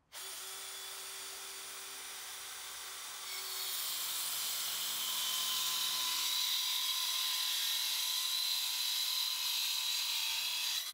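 Black & Decker Matrix 20V cordless compact circular saw running and cutting through a thin plywood board. It starts suddenly, grows louder about three seconds in as the blade works into the wood, and cuts off near the end.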